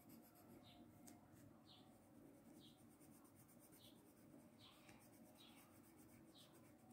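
Faint scratching of a coloured pencil on colouring-book paper, in short strokes about once a second.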